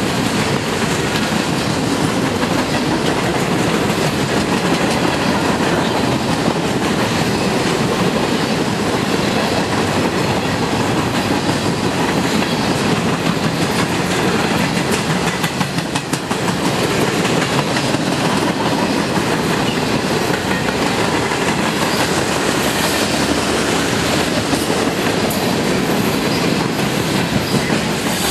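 A CN freight train rolling past, its wheels clattering steadily over the rails.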